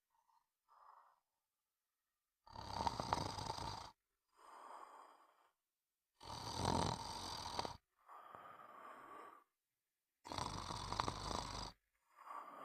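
Snoring in a steady breathing rhythm: three loud snores about every four seconds, each followed by a softer breath out.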